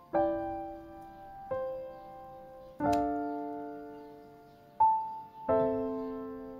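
Background piano music: slow, gentle chords, each struck and left to fade before the next.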